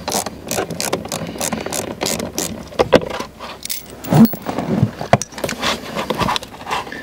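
Irregular clicking and knocking of car parts being handled: a blower-motor bolt spun out by hand, then the heater blower motor worked loose from its plastic housing. The loudest knocks come about three and four seconds in.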